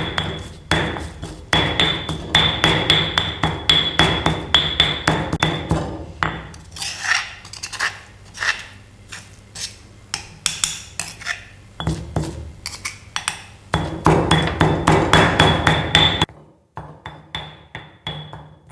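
Stone pestle pounding curry paste in a granite mortar at a quick steady rhythm, about three strokes a second: the final pounding that grinds the paste smooth. Midway the pounding gives way to a metal spoon scraping paste down the mortar's sides, then it resumes, with lighter strokes near the end.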